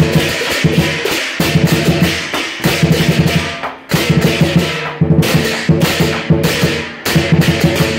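Southern lion dance percussion: a big drum beaten in fast, driving rhythm with cymbals and gong crashing along. The beat breaks off briefly about halfway through and again near the end, then starts up again.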